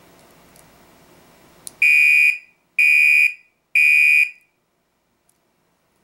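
Second-generation Gentex SHG fire alarm horn sounding three half-second blasts of one steady tone about a second apart, the temporal-three evacuation pattern, run off a 9-volt battery for a test. A light click comes just before the first blast.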